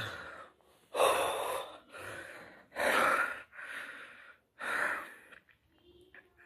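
A person gasping for air in deep, noisy breaths about a second apart, every other breath louder, then quieting near the end. He is out of breath after a minute of beatboxing without inhaling.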